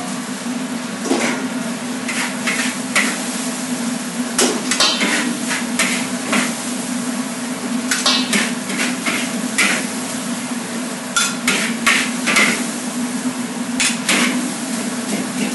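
Metal ladle and spatula clanking against a wok and a stainless steel bowl at irregular intervals as fried rice is scooped from the wok into the bowl, over a steady low hum.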